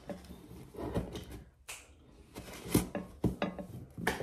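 Handling noises at a table: a few scattered sharp taps and clicks with light rustling, with a short near-silent pause partway through.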